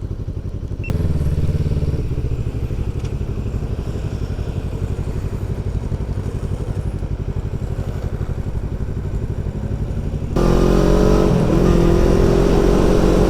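Motorcycle engine running at low revs with a steady pulsing beat. About ten seconds in it opens up and accelerates, getting louder with its pitch rising.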